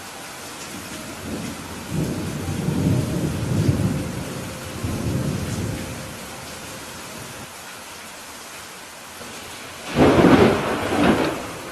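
Steady heavy rain hiss with thunder: a long low rolling rumble from about the second second to the sixth, then a louder, sharper thunderclap about ten seconds in, rolling on briefly.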